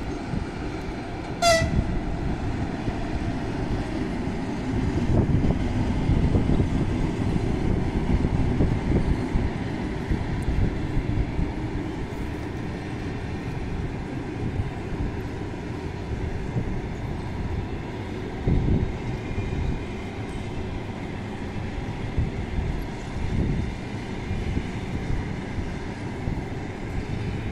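A passenger train hauled by an EP2K electric locomotive running past, then its coaches rolling by: a steady rumble of wheels on rail with a few heavier clacks. About a second and a half in there is one brief high-pitched toot.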